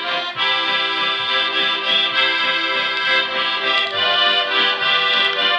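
Live folk-style dance music in the Swiss folkstümlich style, led by two accordions playing together over an upright bass and a keyboard.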